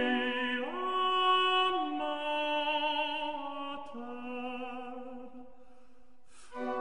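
Slow classical music: long held chords with vibrato, moving to a new chord about half a second in and again a few times, then fading before a fresh chord comes in at the end.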